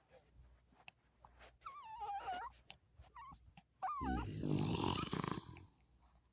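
Animal vocal sounds: a wavering, whine-like call about two seconds in and a couple of shorter ones. Then, about four seconds in, comes a louder, rough, pulsing noise lasting about a second and a half.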